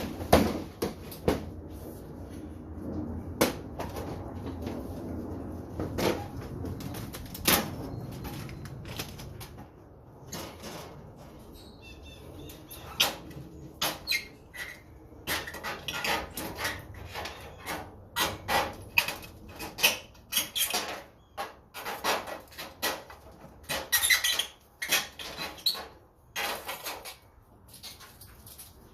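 Clanks, clicks and scrapes of a metal fluorescent light fixture being taken apart by hand for scrap. The sharp knocks come fast and close together in the second half, over a low steady rumble in the first third.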